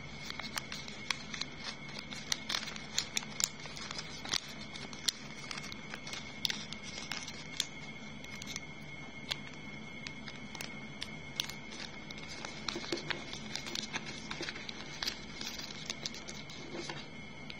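Origami paper being folded and creased by hand: scattered light crackles and clicks as the paper is bent, tucked and pressed flat, over a faint steady hiss with a thin high tone.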